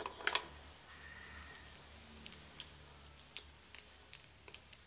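Sharp clicks from small objects being handled, two loud ones close together about a third of a second in, then scattered fainter single clicks, over a faint low hum.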